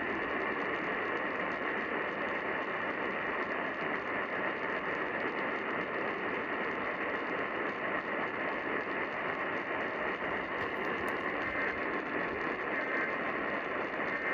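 Steady radio static hiss with no voice coming through: dead air where the relayed EAS warning message should follow the headers and attention tone, which the listener suspects is a failed relay.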